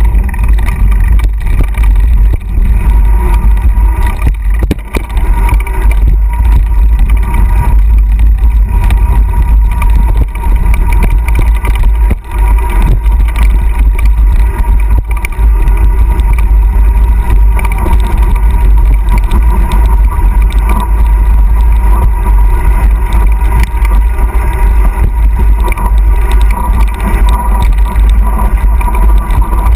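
Wind buffeting the microphone of an action camera carried on a fast mountain-bike descent of a dirt trail: a loud, steady, deep rumble with brief dips.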